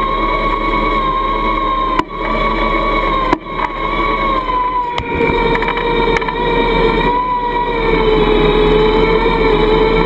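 Warn electric winch on an ATV whining steadily as it reels in its cable to drag a boat. It cuts out briefly twice with a click, about two and three seconds in, and its pitch drops slightly about five seconds in.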